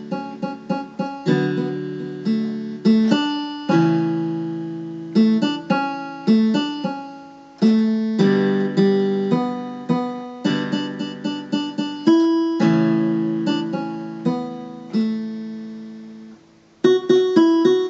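Electronic keyboard on a steel-string guitar voice, played slowly: chords and melody notes struck one after another, each fading away. About a second before the end the sound drops away briefly, then a quick run of notes follows.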